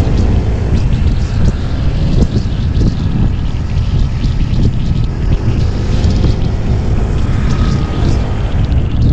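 Wind rushing over the camera microphone while riding a motor scooter at road speed, with the scooter's engine running underneath as a steady low rumble.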